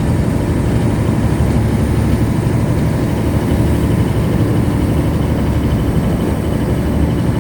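Fishing boat's engine running steadily, a low continuous rumble.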